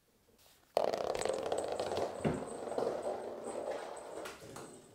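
Cat batting a small toy ball on a laminate floor: a sudden run of clattering and rattling starts about a second in and tapers off over the next few seconds.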